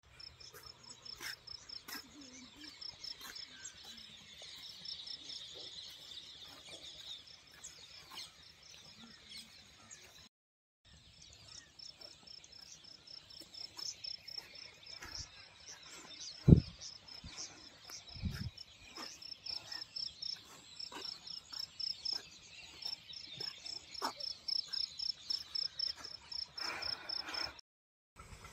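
Insects chirping in a field: a fast, regular train of short high chirps at one pitch, with a couple of low thumps past the middle, the first one sharp and the loudest sound.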